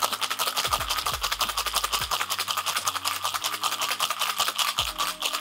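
Ice rattling hard inside a copper cobbler shaker being shaken vigorously to chill a cocktail: a fast, even rattle that keeps up throughout.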